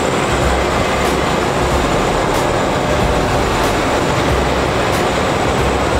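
Car vending tower's elevator platform running as it carries a car back up the tower: a steady mechanical rumble with a few faint clicks.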